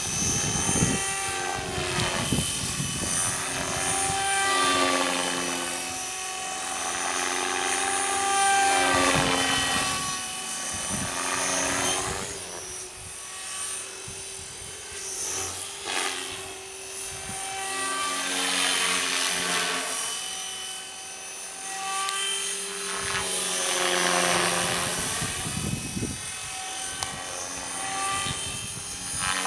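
Radio-controlled model helicopter in flight, its motor and rotor whine running continuously and rising and falling in pitch every few seconds.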